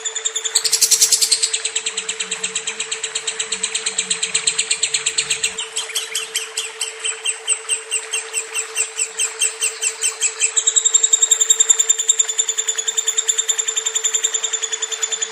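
Lovebird singing a long unbroken trill of fast, evenly repeated high chirps that shifts its pattern a couple of times. A steady low hum runs underneath.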